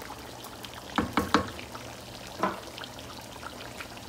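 Adobo sauce simmering in a pan with a steady light bubbling crackle. A wooden spatula knocks against the pan three times in quick succession about a second in and once more, softer, about a second later.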